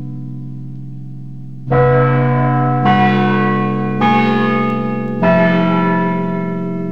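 Music of bell-like struck notes: a ringing tone fades away, then four notes are struck about a second apart, each ringing on and slowly dying away.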